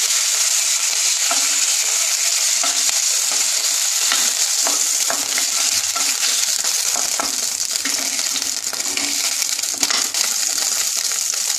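Chicken pieces sizzling in hot oil in a non-stick kadai, with occasional taps and scrapes of a wooden spatula as the pieces are lifted out. The oil keeps sizzling once the pan is nearly empty.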